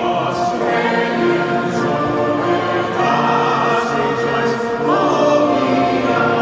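Choral music: a choir singing long held notes.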